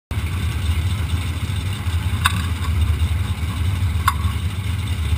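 B-Mod race car's V8 engine idling with a steady low rumble. Two short high chirps about two and four seconds in.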